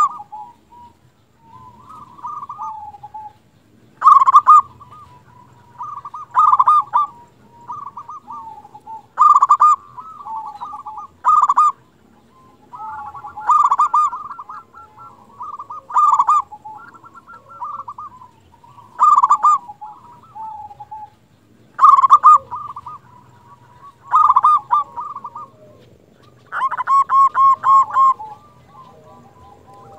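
Zebra dove (perkutut) singing vigorously: loud phrases of rippling, staccato coos about every two to three seconds, with a longer run of quick, evenly spaced notes near the end.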